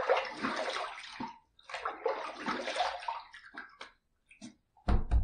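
Water splashed onto the face with the hands, two long splashes, rinsing off shaving lather, followed by a few small splashes and drips and two dull thumps near the end.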